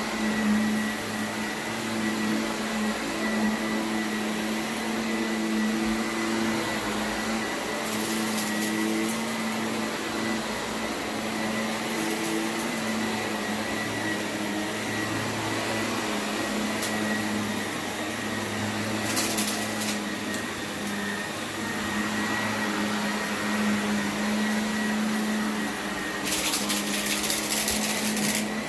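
Shark vacuum cleaner running steadily over carpet, a continuous motor hum with a thin high whine. A few brief louder hissing surges come in, the longest near the end.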